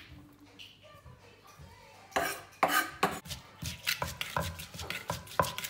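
Wooden pestle pounding shredded kohlrabi for som tam in a clay mortar. The first two seconds hold only light scraping and clicks. After that comes a run of sharp knocks, a few per second, some with a short ringing clink from the spoon against the mortar.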